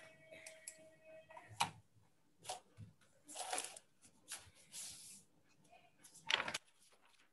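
Faint, scattered clicks and short rustling noises picked up by microphones on a video call, with a faint steady tone in the first second and a half.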